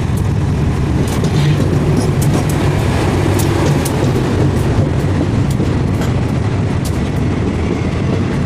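Diesel-electric locomotive passing close by with its hauled passenger coaches: a steady low engine drone, with the wheels clicking over the rail joints as the coaches roll past.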